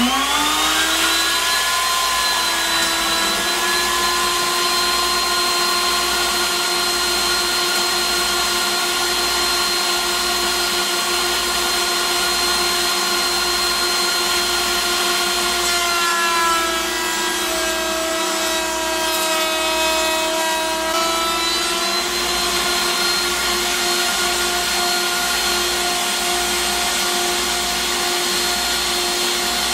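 Table-mounted wood router switched on, its motor spinning up in about a second to a steady high whine over a steady hiss. From about 16 to 22 seconds in, the pitch sags slightly and it sounds rougher as the bit cuts a decorative edge profile along a long board.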